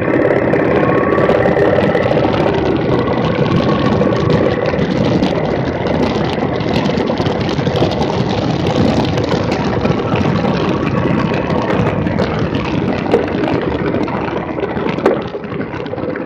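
2017 Triumph Bonneville T100's 900 cc parallel-twin engine running steadily while the bike is ridden, with a sharp click about fifteen seconds in.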